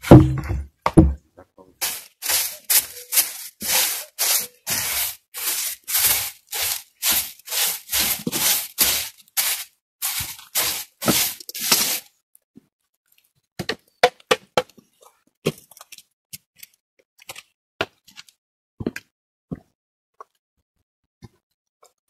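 Heavy wooden thuds as a log is levered with a steel bar, then a steady run of rasping hand-tool strokes on a log, about two a second for some ten seconds, stopping abruptly. After that come scattered light knocks and clicks of wood.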